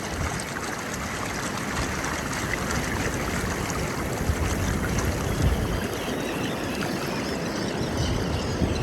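Steady rush of water from the strong current and surf running through an ocean inlet, with a low wind rumble on the microphone.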